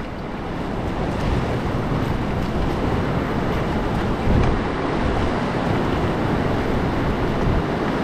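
River water rushing steadily around a whitewater raft, with wind buffeting the microphone.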